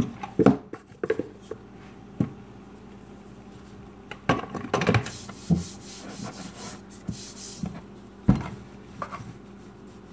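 Hands pressing, patting and rubbing crumbly sugar cookie dough on a countertop, with scattered soft knocks and a hissing rub in the middle. There is one louder thump about eight seconds in.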